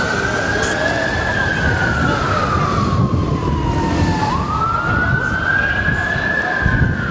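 Police siren wailing, its pitch sliding slowly up and down about once every four to five seconds, over the noise of a street crowd.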